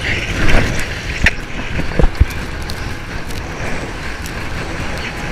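Wind buffeting a camera's microphone while windsurfing, over water rushing and splashing past the board. A few sharp knocks come about a second and two seconds in.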